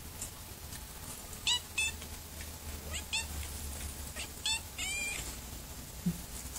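Kitten mewing: a series of about six short, high-pitched mews spread over a few seconds, the last one a little longer.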